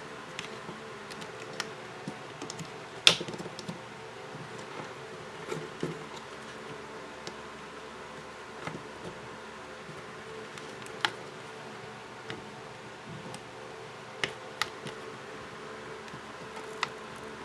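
Scattered sharp clicks and taps of a tool prying at a smartphone's glued plastic back cover, the loudest about three seconds in, over a steady low hum.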